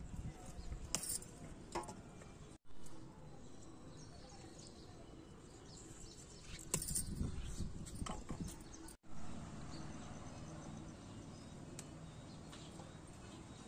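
Okra leaves and stems rustling and glass bangles clinking as pods are picked by hand, with a cluster of louder clicks about a second in and again around seven to eight seconds in.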